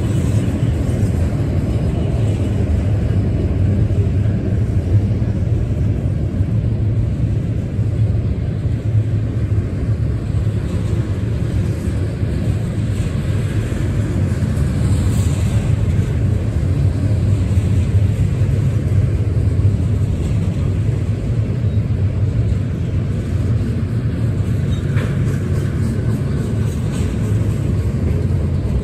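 Double-stack intermodal freight train rolling past: the steady rumble of its steel wheels on the rails as the container-loaded well cars go by.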